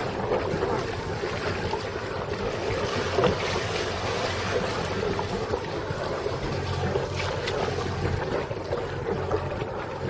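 Strong wind rushing and buffeting over the microphone aboard a small boat, with a steady low hum underneath.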